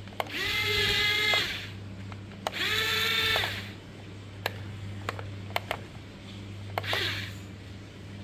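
Small electric gear motors of a Yi Gong YG258C radio-controlled toy excavator whining in two bursts of about a second each, the second starting about two and a half seconds in, with a shorter one near the end and sharp clicks in between. Each burst runs at one fixed speed, since the toy-grade controls are not proportional.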